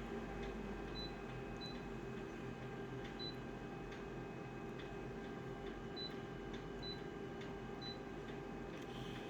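Steady low electrical hum with six short, high beeps of the same pitch and a few faint clicks.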